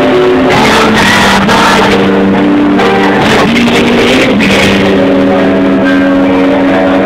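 Live band playing on stage, guitars prominent, with long held notes over a dense, steady accompaniment, heard from within the audience.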